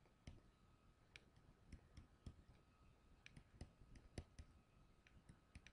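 Near silence broken by faint, irregular clicks of a stylus tapping a tablet screen as an equation is handwritten, with a faint steady high tone underneath.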